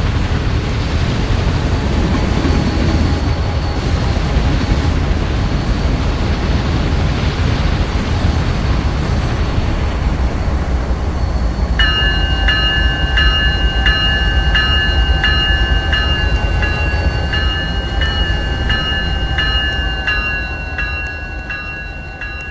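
A train passing close by with a loud, steady rumble of wheels on rail. About halfway through, a set of steady high ringing tones with a regular click joins in, and the rumble fades near the end as the train moves away.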